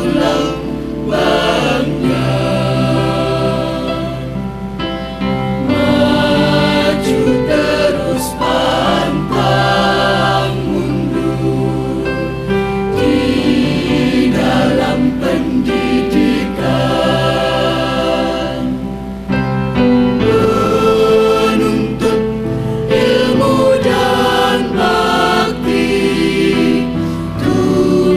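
Mixed choir of men and women singing in unison and harmony, with long held notes.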